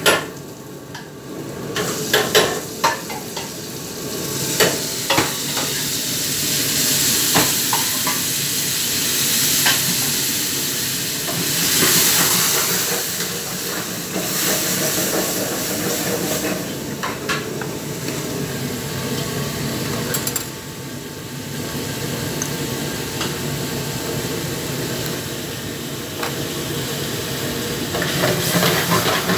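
Food sizzling and frying in a wok and pan over high gas flames, with a steady hiss. A metal ladle clinks and scrapes against the pan, sharpest in the first few seconds.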